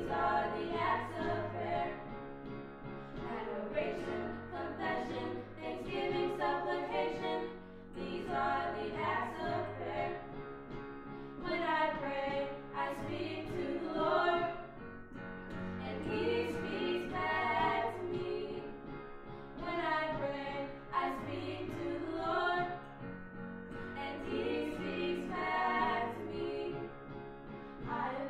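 Two young female voices singing a gospel worship song, alone and together, over chords played on a Yamaha digital piano.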